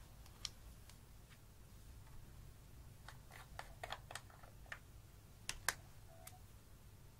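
Small plastic clicks and taps from makeup compacts and a jar being handled: a few scattered clicks, a quick run of them about three to five seconds in, and two sharper clicks about five and a half seconds in.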